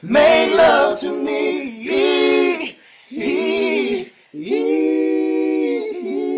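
A voice singing unaccompanied, in short phrases with a wavering vibrato, then one long held note from about four and a half seconds in.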